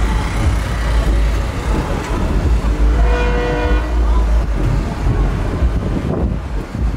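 Car-meet background noise with a steady low rumble; about three seconds in, a car horn gives one steady toot lasting about a second.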